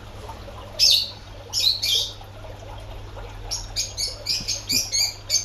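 Caged birds chirping in short, high calls over a steady low hum. Two louder calls come about a second in and just before two seconds, then a quick run of chirps starts about three and a half seconds in.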